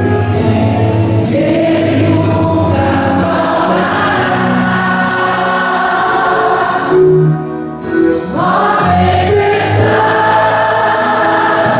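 Christian worship song: a choir of voices singing in Portuguese over instrumental accompaniment, with held notes and a short drop in level about seven seconds in.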